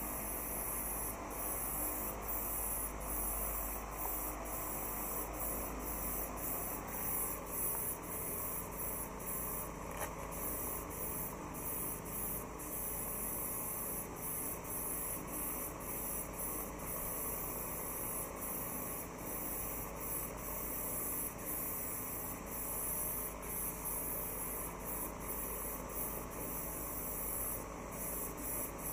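Compressed-air paint spray gun hissing steadily as it sprays paint, with brief flickers in the hiss.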